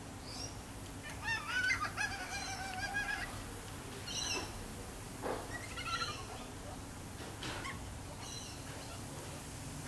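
Yellow-tailed black-cockatoo calls: one long wavering call about a second in, followed by several shorter calls.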